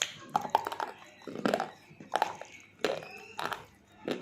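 Close-up chewing of a hard, chalky mineral food, biting down with crisp crunches about every half to one second.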